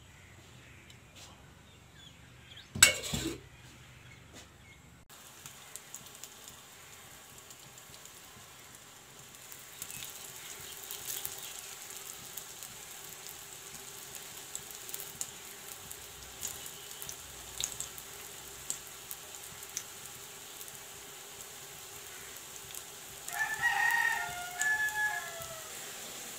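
Batter patties shallow-frying in oil in a non-stick pan: a steady sizzle with scattered crackles. A single sharp knock about three seconds in is the loudest sound. A rooster crows in the background near the end.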